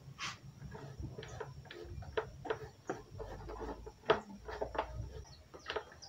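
Wiping the plastic blades and grille of a standing electric fan with a sponge: faint rubbing with scattered light clicks and taps as the blades and grille are handled, over a low steady hum.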